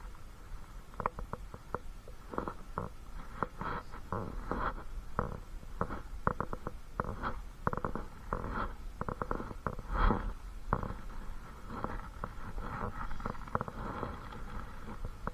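Irregular clicking and rubbing from handling close to the microphone, over a low rumble.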